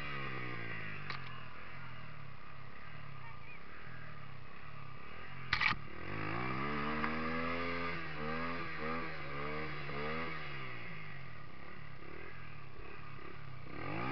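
Yamaha TT-R125 dirt bike's single-cylinder four-stroke engine revving up and down again and again, the bike stuck in a mud hole with its rear wheel spinning. A brief sharp high-pitched noise cuts in about five and a half seconds in.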